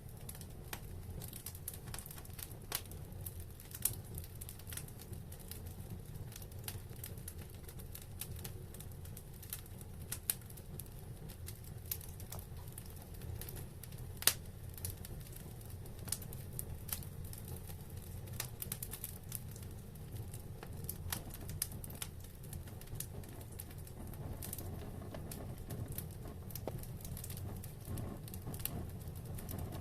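Wood fire burning in a fireplace, crackling and popping at irregular intervals over a low steady rumble; one sharper pop stands out about halfway through.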